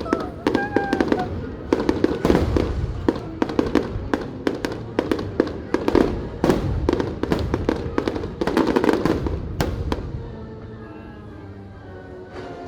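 Fireworks bursting in rapid succession, sharp bangs and crackling, with music playing under them; the bursts die away about ten seconds in.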